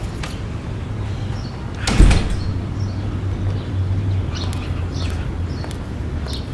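A door bangs once about two seconds in, over a steady low hum. A few light clicks and taps follow in the second half.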